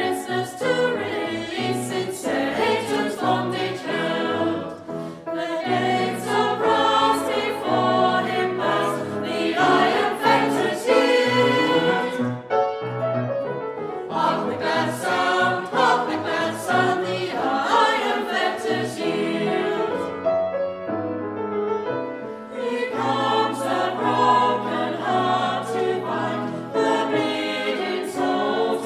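Small mixed choir of men and women singing a Christmas carol with piano accompaniment.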